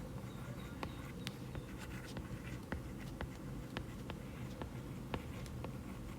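Faint, irregular light clicks and taps, a few each second, over a low steady hum.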